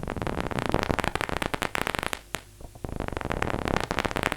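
Synthesized imitation of paper crumpling from the Vital software synth: brown noise through a filter, triggered as a dense, irregular stream of crackling clicks. There is a brief thinning about two seconds in, then the clicks grow dense again.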